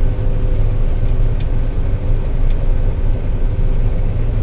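Combine harvester running steadily while cutting soybeans: a deep, even rumble with a steady hum over it and a couple of faint ticks.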